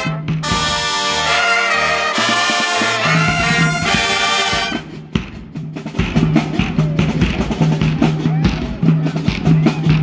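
High school marching band playing: brass and saxophones sound together for about five seconds, then the horns drop out and the drums carry on with a driving beat over a repeating low note.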